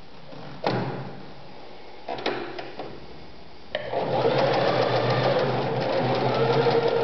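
Privileg Super Nutzstich 1511-1 domestic sewing machine: a sharp knock and a few clicks as it is handled, then from about four seconds in the motor runs and the needle stitches steadily through fabric.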